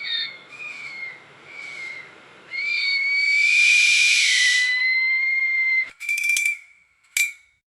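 Metal marina gate hinges squealing in a few short squeaks and then one long drawn-out squeal. About six seconds in the gate clanks with a brief rattle, then gives a single sharp metallic click near the end.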